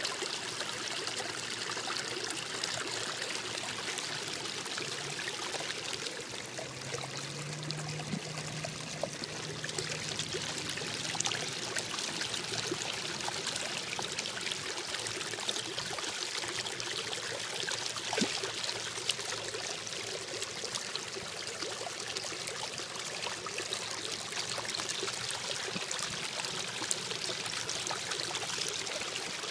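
Small creek running steadily: a constant rush of water over a shallow run, with scattered faint ticks.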